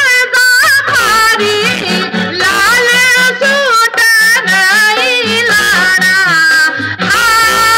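A woman singing a folk melody into a microphone over a loudspeaker system, her voice gliding and ornamenting the notes, over an instrumental backing with a steadily repeating bass line.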